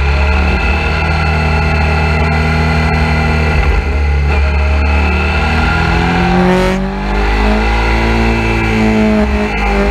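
2007 Suzuki V-Strom 650's 645 cc V-twin engine running under load as the motorcycle rides a winding road. Its pitch changes about four seconds in, drops briefly around seven seconds in, then climbs as it accelerates.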